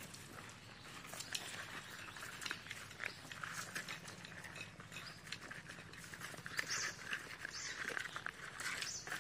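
A litter of puppies eating rice together from a bowl: a busy, irregular run of small chewing and smacking sounds, a little busier in the second half, over a faint steady low hum.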